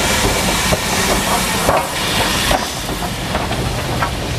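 LMS Ivatt Class 4MT 2-6-0 steam locomotive No. 43106 moving slowly past close by: steam hissing steadily, with a few brief knocks from the running gear and wheels.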